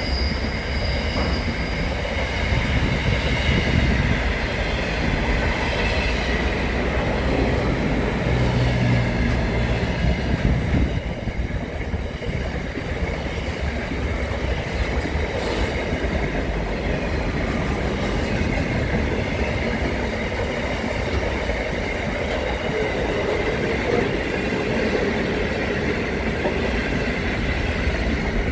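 Long container freight train passing at speed: a steady rumble and clatter of steel wheels running over the rails.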